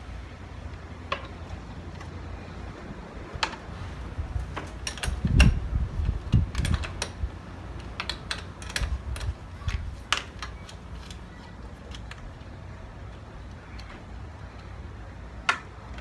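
Irregular small metal clicks and taps from a wrench and terminal bolts as a mower battery's cable connectors are loosened, bunched in the middle, with a couple of dull low knocks around five and six seconds in.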